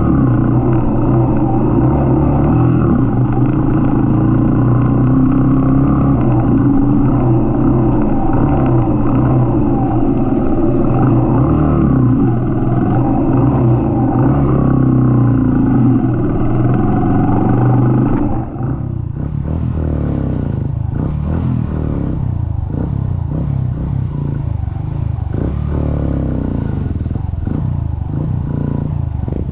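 Motorcycle engine running at a steady throttle on a gravel road. About two-thirds of the way through the throttle eases off, the engine note drops and gets quieter, and the clatter of the bike over the rough surface comes through.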